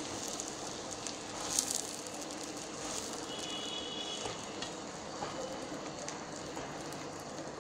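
Oil and butter with ground spices sizzling steadily in a nonstick kadai over a low flame, as pieces of boiled corn on the cob are set into it. There is a soft knock about a second and a half in.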